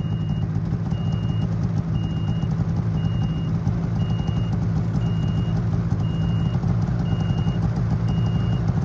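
Snowmobile engine idling with a steady low hum, and the sled's reverse warning beeping in one high, even tone about once a second: the machine is in reverse gear.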